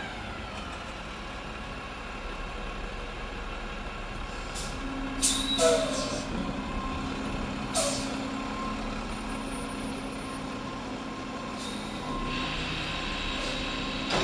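Mack front-loader garbage truck with a McNeilus body running steadily, with a few short, sharp air-brake hisses around the middle.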